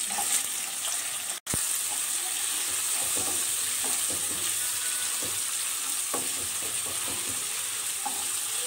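Sliced onions sizzling in hot oil in a metal karahi, a steady hiss with a spatula scraping and tapping the pan as they are stirred. The sound cuts out for a moment about a second and a half in.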